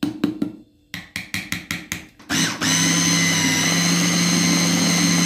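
Electric food processor mixing flour into a red mash to knead dough. A few clicks and knocks come first, then a little over two seconds in the motor starts and runs loud and steady with a high whine.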